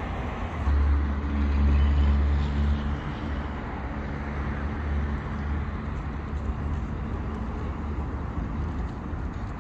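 Steady city traffic noise, with a low engine hum that swells about a second in and fades out over the next few seconds.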